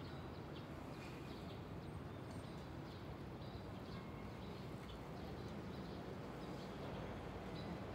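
Steady low outdoor rumble with many short, high chirps of small birds, a few each second.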